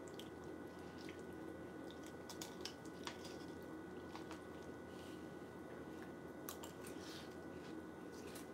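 Faint scattered clicks and small scraping noises from a spoon and dry cereal handled in a plastic cup, over a steady low room hum with two faint high whining tones.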